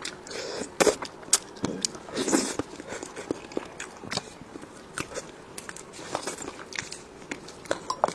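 Close-miked eating sounds: a person biting and chewing food, with irregular sharp crunches and wet mouth clicks.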